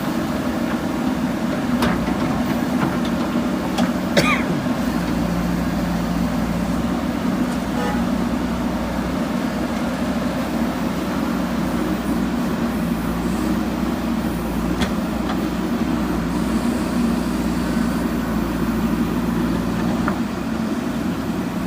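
Diesel engine of a JCB backhoe loader running steadily under work while loading soil, with a few brief knocks, the loudest about four seconds in.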